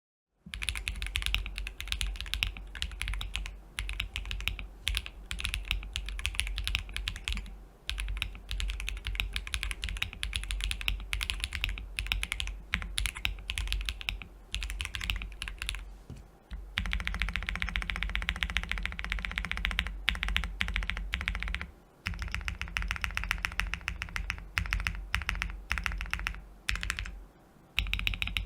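Fast typing on a Monsgeek M1W mechanical keyboard with Akko Cream Yellow V3 switches on a polycarbonate plate and lubed M-ONE stabilizers: a dense, continuous run of keystrokes broken by a few brief pauses.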